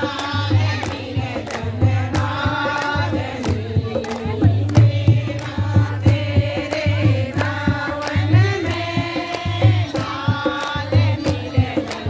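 Group of women singing a Hindu devotional bhajan to the goddess together, over a steady drum beat with hand claps.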